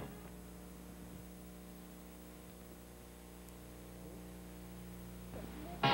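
Faint steady electrical hum, several low even tones, under a light hiss: the background noise of an old videotape recording in a blank stretch between commercials.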